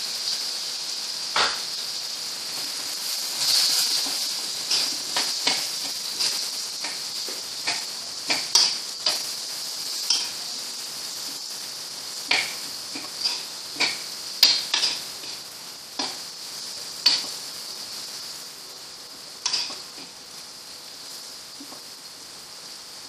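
Sliced onions sizzling in hot coconut oil in a clay pot (chatti), stirred with a metal spoon that clicks and scrapes against the pot at irregular moments. The sizzle is loudest as the onions go in and gradually dies down.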